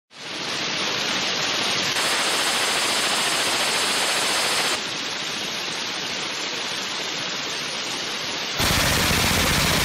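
Suppressed belt-fed light machine gun firing long continuous bursts, the shots running together into a dense rushing noise. The sound changes abruptly about two, five and nine seconds in.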